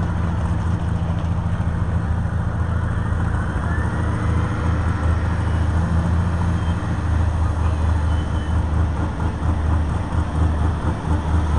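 A heavy engine running steadily at low speed, a deep even drone that holds throughout.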